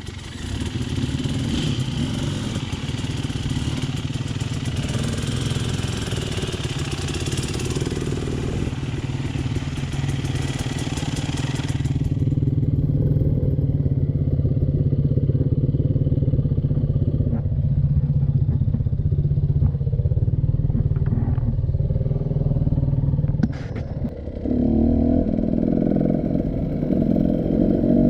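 Motorcycle engine running at a steady pace. About twelve seconds in, the hiss above the engine drops away abruptly, leaving a duller engine sound. Near the end there is a click, then a choppier, rougher sound.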